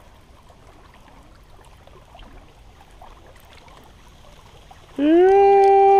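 Faint lapping of lake water and wind at the shoreline. About five seconds in, a loud, steady pitched tone begins, sliding up at the start, holding level for just over a second, then dropping away.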